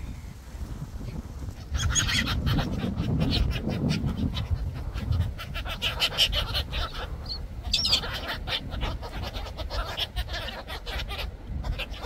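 A flock of black-headed gulls calling, many overlapping squawks and cries that start about two seconds in.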